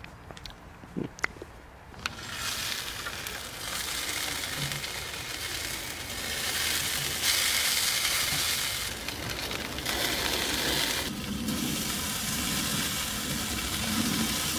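Chicken drumsticks sizzling on the grate of a Big Green Egg ceramic kamado grill, the hiss starting about two seconds in and growing louder partway through. The first two seconds hold only a few light clicks.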